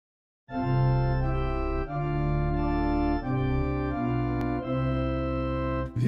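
Organ playing the opening of a hymn, starting about half a second in: a run of held chords that change about every second and a half, with a short break before each new chord.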